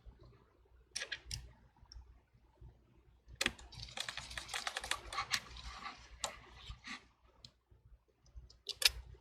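Light, rapid clicking and tapping of a small precision screwdriver and the phone being handled on a work surface. A few single clicks at first, then a dense run of quick clicks for about three seconds from a few seconds in, and another short cluster near the end.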